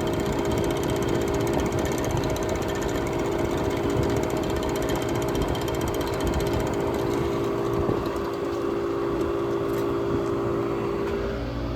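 1967 Chrysler Airtemp Imperial air conditioner running: a steady hum from its Tecumseh compressor over the rush of its fans. A lower rumble comes in near the end.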